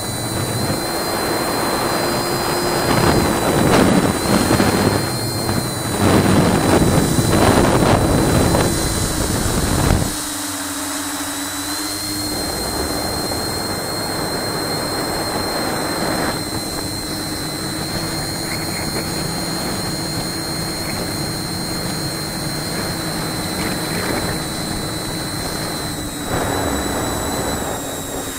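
Tricopter's brushless motors spinning Graupner 9x5 tri-blade propellers in flight: a steady droning hum with a high whine above it. For the first ten seconds or so, loud rushing gusts of wind or prop wash sit over the motor sound, then it settles to an even drone.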